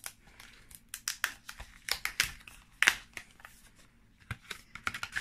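Card and paper packaging of a craft die set handled and opened by hand: an irregular run of sharp rustles, scrapes and taps of card, the loudest about three seconds in.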